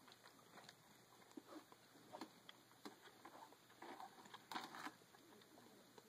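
Faint, irregular wet clicks and crunches of a tiger chewing its food, with small clusters about two seconds in and again near the four-to-five-second mark.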